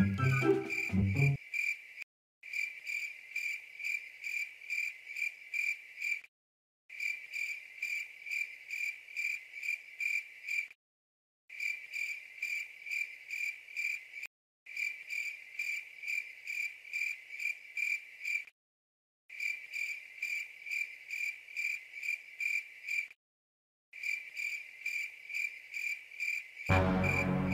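Crickets chirping as a night ambience: a steady run of rapid high-pitched chirps that cuts out to dead silence for a moment every four seconds or so. Music comes in near the end.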